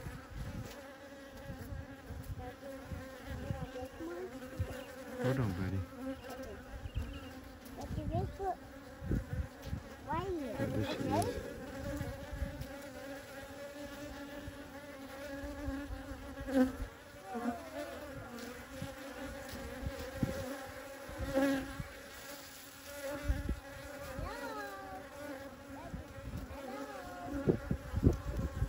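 Many honey bees buzzing in a steady hum, with single bees' buzz rising and falling in pitch as they fly close by. Occasional low thumps break in, the loudest about two-thirds of the way through and near the end.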